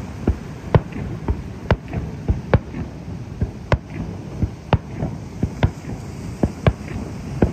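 Aerial fireworks shells bursting in quick succession: a run of sharp bangs, about two a second and unevenly spaced, over a steady low rumble.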